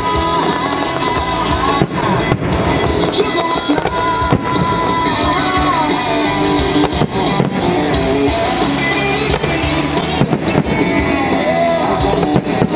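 Aerial fireworks shells bursting in a series of sharp bangs at irregular intervals, over loud music with a melody.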